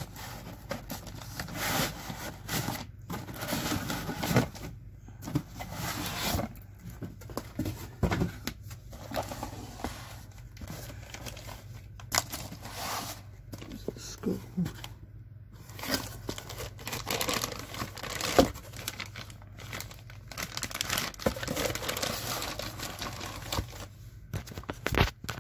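Clear plastic packaging bags crinkling and cardboard boxes rustling as hands handle them, in irregular bursts with short pauses and a few sharp knocks.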